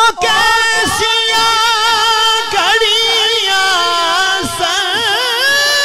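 A man singing a Punjabi naat in one long, high, ornamented vocal line. The pitch wavers and swoops through the middle and settles into a steadier held note near the end.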